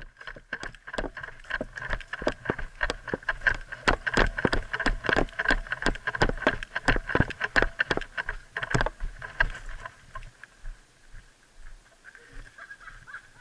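Running footsteps crunching on a gravel path, about three strides a second, slowing to quieter walking steps about ten seconds in.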